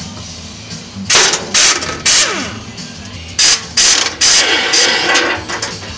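Impact wrench fired in six short bursts, in two groups of three, zipping out the bolts that hold the driveshaft heat shield to the chassis.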